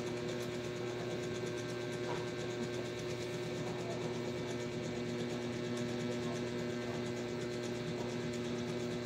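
Steady electrical hum with a constant low drone and its overtones, unchanging throughout, from a mains-powered appliance or motor running in the room.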